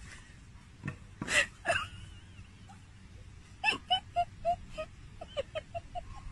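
A small dog whining and yelping in excitement: a few sharp yelps, then a quick run of short whimpers.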